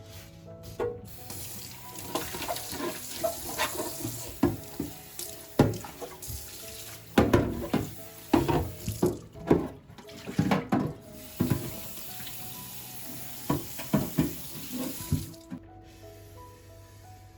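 Kitchen tap running into a sink, with repeated knocks and clatter of items handled and rinsed under the water; the water cuts off near the end. Soft background music underneath.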